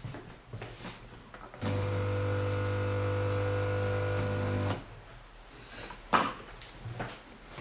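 Coffee vending machine buzzing as it dispenses: a steady electric hum that starts about a second and a half in, runs about three seconds and cuts off sharply. A single sharp knock follows about six seconds in.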